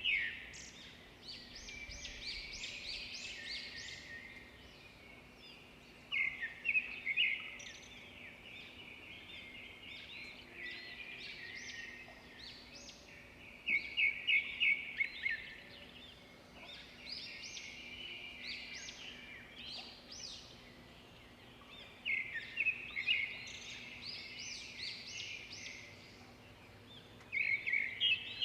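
Birdsong: a loud burst of rapid, high chirping notes repeats about every seven seconds, with quieter chirping between the bursts.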